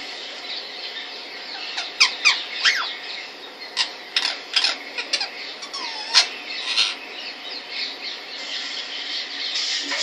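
Indian ringneck parakeet giving a string of short, high calls between about two and seven seconds in, the first few sliding sharply down in pitch.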